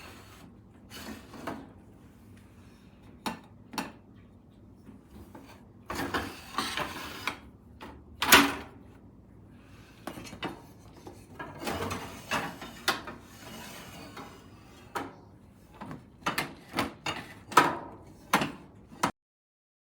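Handling noises from a bakers rack being worked on: an irregular series of knocks, clicks and scrapes, with the loudest knock about eight seconds in.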